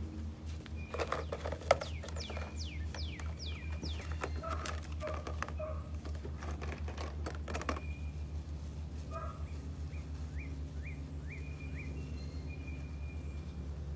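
Small birds calling in runs of quick, falling chirps, in two spells, over a steady low hum. In the first half there are scattered sharp clicks and knocks.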